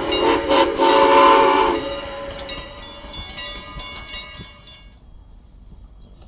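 Steam locomotive CN 89's whistle blowing with two brief breaks, cutting off about two seconds in. A grade-crossing bell then rings quickly, about five strikes a second, and stops near the end.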